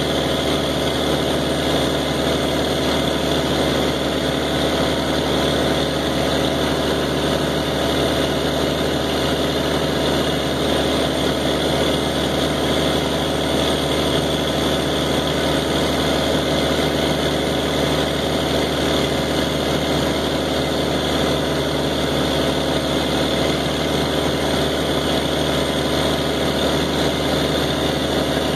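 Engine driving a pump, running steadily at about half throttle under automatic throttle control, with the pump under load and building outlet pressure toward its set point.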